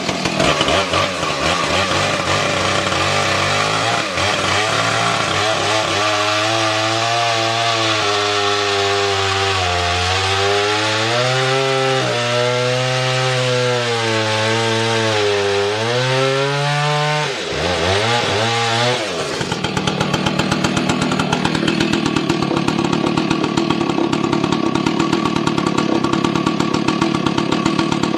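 Husqvarna 2100 two-stroke chainsaw with a 28-inch bar running loud and cutting, its engine pitch sagging and recovering under load. About 17 seconds in, the revs fall away and it settles into a steady idle.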